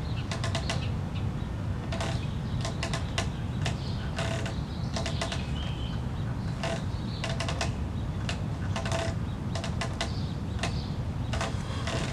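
TRX suspension straps creaking and clicking under load with each inverted row, in short clusters about every one to two seconds, over a steady low rumble.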